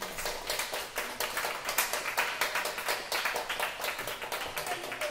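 Small audience applauding: many hand claps close together, steady throughout.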